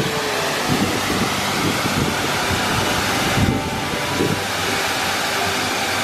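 Waterfall rushing steadily onto rocks, an even hiss of falling water, with a few brief low thumps.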